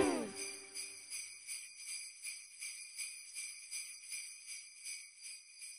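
Jingle bells shaken in a steady rhythm, about three shakes a second, fading slowly as the last note of the music dies away at the start.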